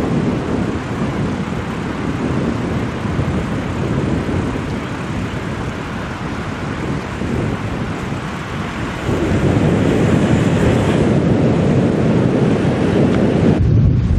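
Wind buffeting a camcorder microphone outdoors: a steady low rumble with hiss. It grows louder about nine seconds in and changes abruptly shortly before the end.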